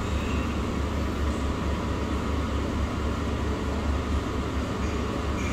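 Steady low rumble with an even background hiss, unchanging in level throughout.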